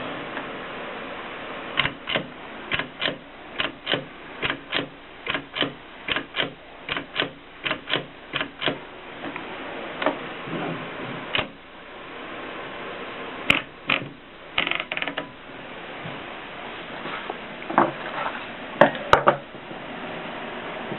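Mignon Model 4 index typewriter in use, its mechanism clicking sharply about two to three times a second for several seconds, then a few scattered clicks and short clattering runs.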